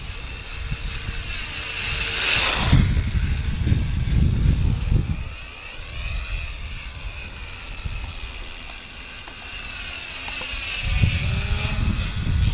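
Battery-electric radio-controlled P-51 Mustang model's motor and propeller whining as it flies past, the pitch sliding as it passes; it is loudest about two seconds in and again near the end. Wind rumbles on the microphone.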